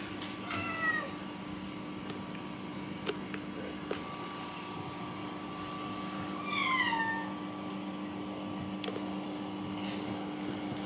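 A cat meowing twice, two short calls that fall in pitch, about six seconds apart, over a steady low hum.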